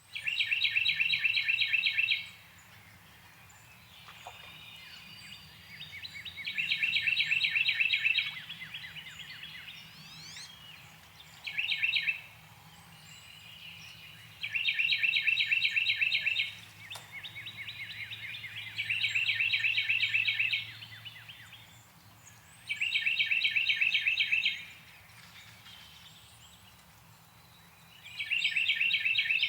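Northern cardinal singing: seven phrases of fast, evenly repeated whistled notes, each phrase about one to two seconds long with pauses of a few seconds between them. Other birds call faintly in the background.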